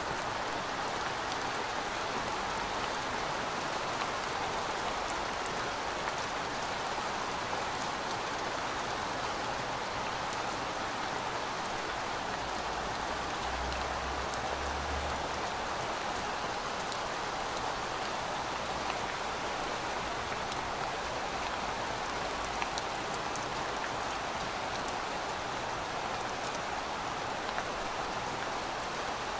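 Steady rain falling: an even hiss with scattered sharp drop ticks, and a brief low rumble about halfway through.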